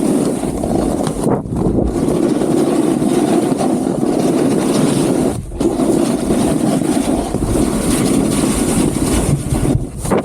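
Loud, steady wind rush buffeting the camera microphone as a skier descends fast, dropping out briefly three times.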